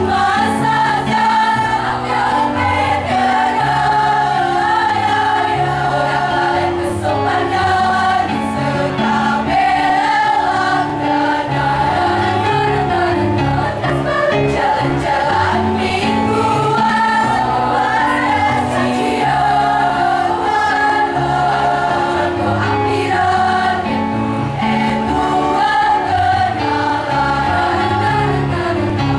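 A choir singing a song, its voices carrying a melody over a backing of held low notes.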